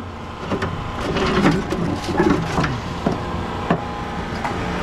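Hydraulic rescue tool (Hurst Jaws of Life) running under pressure: its pump drones steadily while the spreader jaws force the housing apart, with several sharp cracks and creaks as the metal gives.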